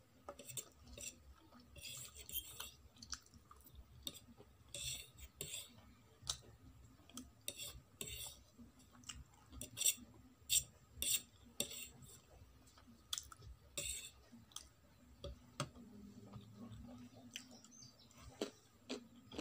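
Metal fork clicking and scraping on a ceramic plate as the last noodles are gathered up, with quiet chewing in between. There are many short clinks and several longer scrapes.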